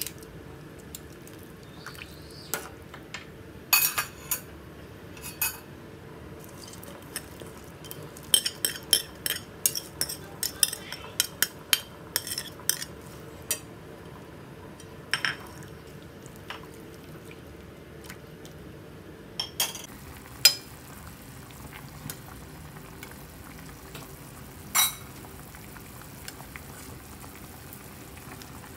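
Metal ladle clinking and scraping against a stainless steel pot while stirring chicken feet in simmering water, over a steady low bubbling noise. The clinks come in a quick flurry in the middle, then only a few single knocks near the end.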